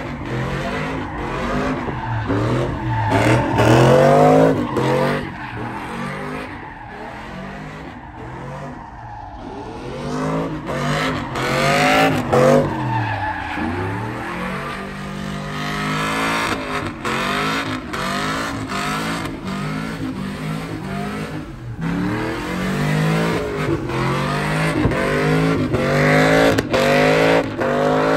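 Pickup truck doing a burnout and donuts: the engine revs up and down again and again as the rear tyres spin and squeal in smoke.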